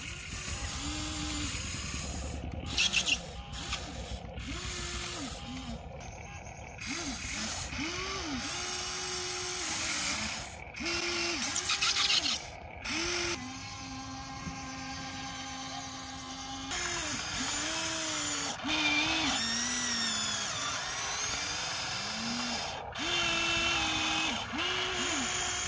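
Electric motors of a Huina radio-controlled excavator whining, the pitch rising and falling with each swing of the boom, arm and bucket. A few short loud rushes of soil pouring from the bucket.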